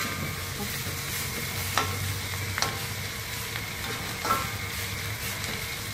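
Squid, chilies and petai sizzling in a metal wok as a metal spatula stir-fries them. A few sharp scrapes and knocks of the spatula against the wok ring out briefly, near the start, around two seconds in and again past four seconds.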